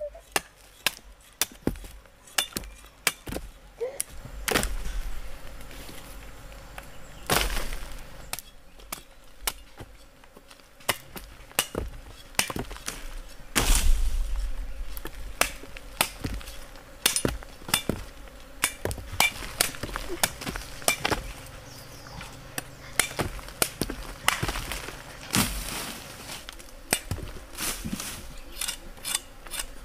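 Machete chopping cassava roots off their stems: irregular sharp chops and knocks, a few of them heavier thuds.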